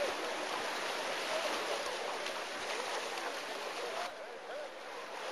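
Steady outdoor noise like moving water, with faint distant voices; it turns duller about four seconds in.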